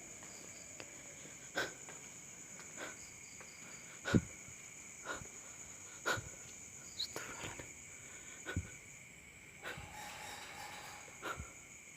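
Slow footsteps, roughly one step a second, over a steady high chirring of night insects such as crickets.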